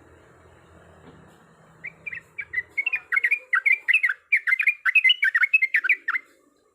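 Yellow-vented bulbul (trucuk) singing a fast rolling 'ropel' phrase: a quick run of short, falling chirps that starts about two seconds in, grows denser, and breaks off suddenly after about four seconds.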